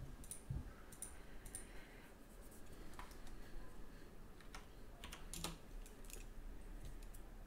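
Faint computer keyboard keystrokes and mouse clicks, a dozen or so short clicks spaced unevenly.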